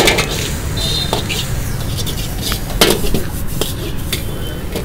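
Metal spatula clanking and scraping against a steel wok as rice is stir-fried, with a run of sharp clanks, the loudest right at the start and about three seconds in. A steady low rumble runs underneath.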